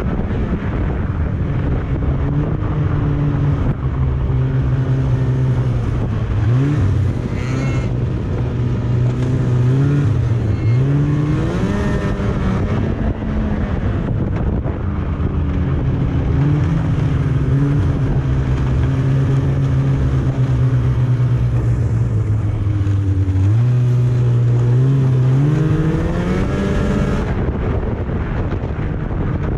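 Snowmobile engine running under way. Its pitch holds steady for stretches, climbs as the throttle opens about six, eleven and twenty-four seconds in, and drops back after each climb.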